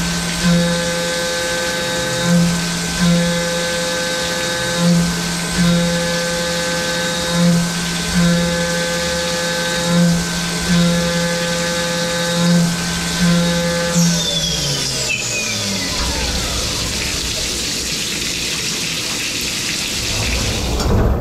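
Syil X7 CNC mill's spindle cutting under flood coolant: a steady whine that swells louder in pairs about every two and a half seconds as the end mill engages the stock. About two-thirds of the way through, the spindle winds down, its whine falling in pitch, leaving the hiss and splash of the coolant spray.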